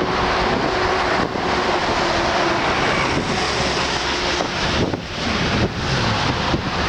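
Car driving along a city street: steady road and engine noise with wind buffeting the microphone, dipping briefly a few times.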